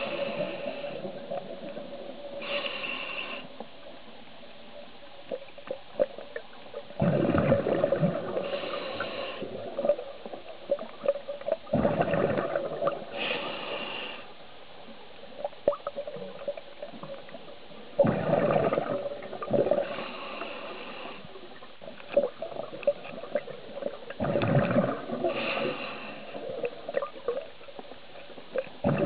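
Scuba diver breathing through a regulator underwater: a short hiss on each inhale and a gurgling rush of exhaled bubbles, repeating about every five to six seconds.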